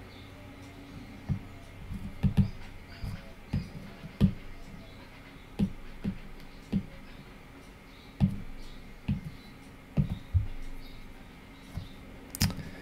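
Stylus tapping and knocking on a tablet screen: about a dozen soft, dull taps at irregular intervals, with a sharper tap near the end, over a faint steady hum.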